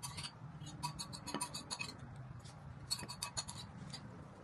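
A utensil clinking and scraping against a bowl while eating: an irregular run of small, sharp clicks over a low steady hum.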